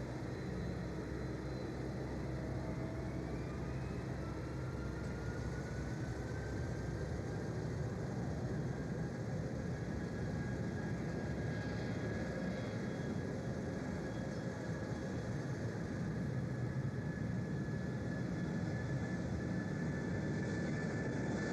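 Jet aircraft engines running steadily, a rumble with a faint whine that rises slowly in pitch.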